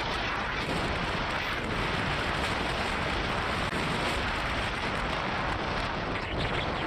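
Steady wind noise buffeting the microphone of a motorcycle riding at speed, with road noise beneath and no distinct engine note standing out.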